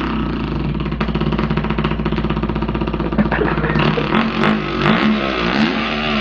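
A man imitating a two-stroke dirt bike engine with his mouth: a fast, even buzzing idle, then rising and falling revs from about three seconds in.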